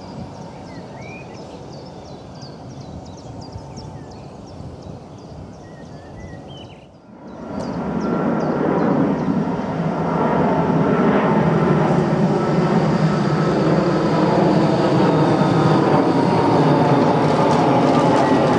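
Small birds chirping over a low background hum of distant trams. From about seven seconds in, the running noise of an approaching tram swells steadily louder into a steady rumble with a faint whine.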